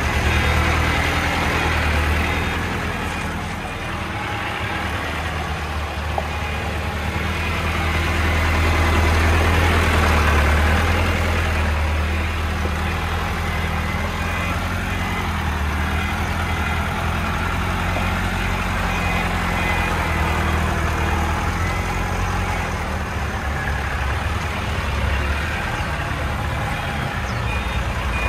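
Engine of a Hoa Mai light dump truck loaded with sand, running low and steady as the truck creeps over rough ground. It revs up briefly about eight to ten seconds in.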